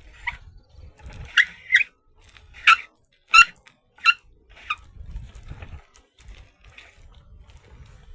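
A run of short, high, squeaky animal calls, about seven in the first five seconds, from creatures in a swamp. A low rumble on the microphone runs underneath, stronger in the second half.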